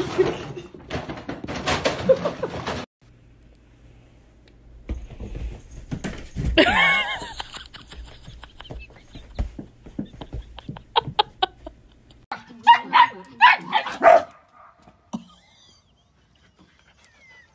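A dog barking, about five barks in quick succession, coming after a stretch of voices and scattered clicks.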